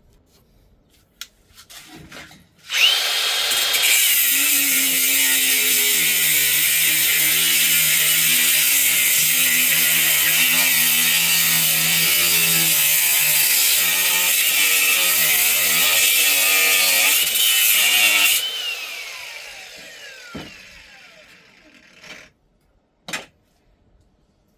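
Power tool motor spinning up about three seconds in and running steadily at speed with a high whine for about fifteen seconds, then switched off and winding down with a falling whine. A single sharp click follows near the end.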